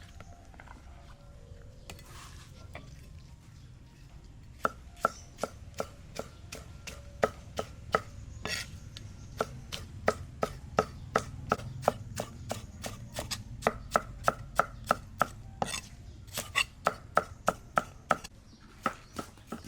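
Knife chopping food on a cutting board, a steady run of sharp knocks about three a second that starts a few seconds in.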